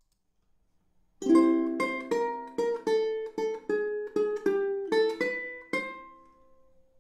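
Ukulele strummed in a short run of chords, about two strums a second, starting a little over a second in after near silence.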